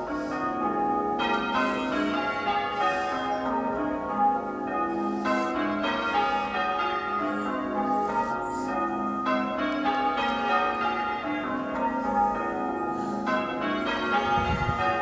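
Church tower bells in full-circle change ringing during a peal: a continuous, even run of strikes at many pitches, each bell ringing on into the next.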